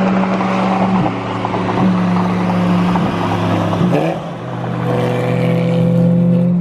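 Porsche 991.2 GT3 RS's 4.0-litre flat-six with a straight-piped, muffler-deleted exhaust, running at steady revs. Its pitch shifts slightly a few times, with a short dip and rise about four seconds in.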